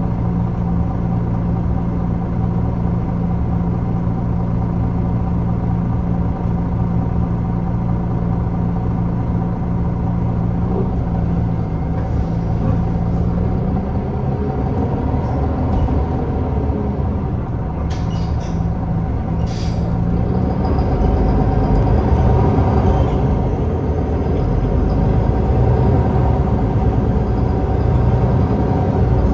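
MAN Lion's City Hybrid bus drivetrain with its 10.5-litre MAN D2066 inline-six diesel, running with a steady hum for about twenty seconds. A couple of short hisses come around two-thirds of the way through, then the sound turns louder and deeper as the bus works harder.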